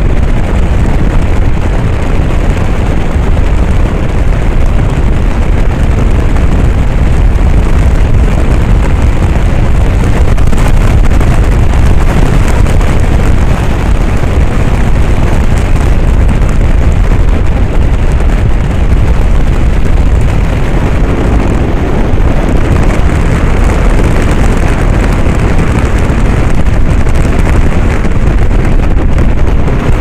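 Strong wind blowing over a camera's microphone: a loud, steady, noisy buffeting, deepest in the low end, with no break.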